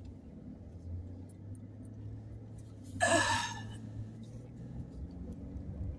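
Steady low road and engine hum inside a moving pickup truck's cabin, with a woman's short, loud, breathy gasp about three seconds in.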